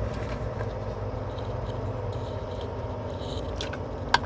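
Truck engine running steadily, heard from inside the cab, with a few short sharp clicks near the end.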